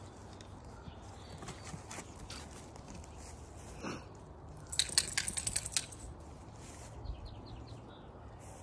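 Footsteps crunching on dry wood-chip mulch, with a quick run of sharp crackles about five seconds in.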